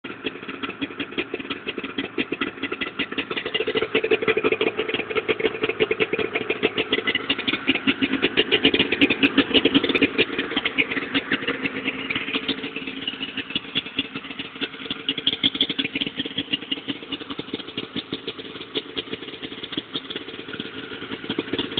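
Snowmobile's two-stroke engine running at idle with rapid, slightly uneven firing pulses and a light rattle, its carburettors freshly cleaned and tuned; the engine speed swells and eases a little.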